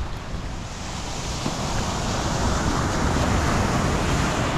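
Sea surf breaking and washing up a sandy beach: a steady rush that swells louder over the first couple of seconds and then holds.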